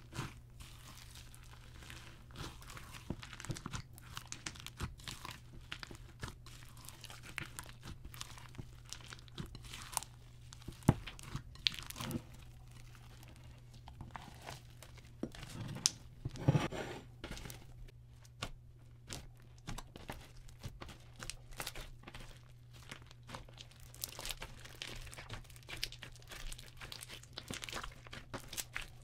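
Hands squishing, kneading and stretching a large mass of clear slime packed with glitter and small beads, making irregular sticky pops, crackles and crunches. It gets louder for a moment about sixteen seconds in.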